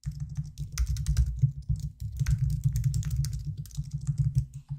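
Fast typing on a computer keyboard: a dense run of key clicks, each with a low thud, that stops just before the end.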